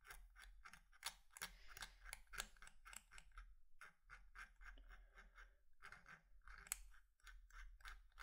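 Faint, irregular small scrapes and ticks, several a second, from fine watchmaking tools working on a vintage watch's hands.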